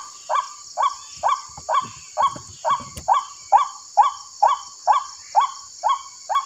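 White-breasted waterhen (ruak-ruak) lure call from a loudspeaker, a short "kruak" repeated evenly about twice a second, used to draw waterhens into snares. Under it runs a steady high-pitched hiss.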